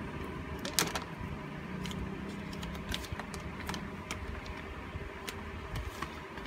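Scattered light clicks and taps, the loudest about a second in, over a steady fan-like hum.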